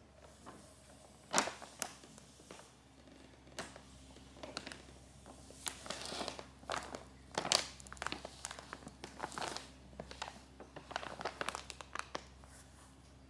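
A kraft paper bag crinkling and rustling as a cat shifts about inside it, irregular and busiest through the middle, with a few sharper crackles, thinning out near the end.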